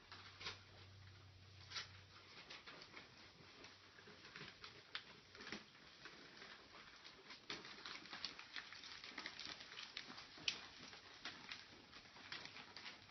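Faint crinkling of gift-wrapping paper as it is handled and folded, a steady scatter of small crackles.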